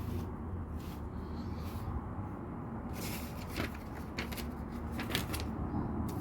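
LEGO plastic pieces being handled: light clicks and rustles, clustered in the second half, over a steady low background hum.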